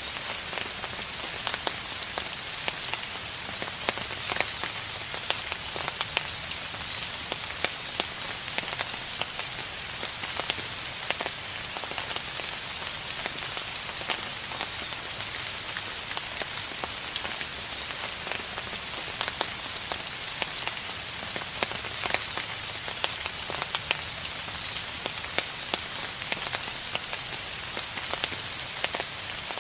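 Steady rain falling, a continuous hiss with many close individual drops ticking sharply throughout.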